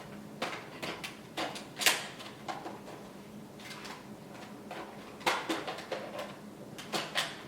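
Plastic clicks, knocks and rattles from a Nerf blaster being handled while a launcher attachment is fitted onto it, with the sharpest knocks about two seconds in and about five seconds in.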